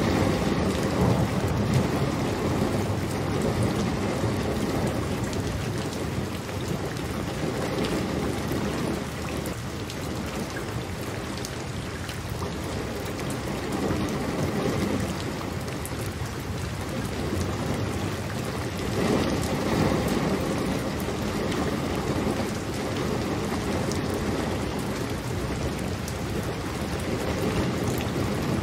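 Steady rain falling, with low rolls of thunder that swell near the start and again about two-thirds of the way through.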